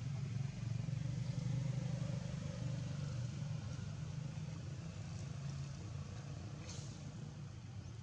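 Low, steady engine rumble of a motor vehicle running nearby, slowly fading, with one short click near the end.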